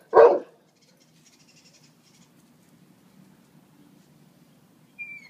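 A Saint Bernard puppy barks once, then only a faint low rumble remains, and a brief thin high whine comes near the end.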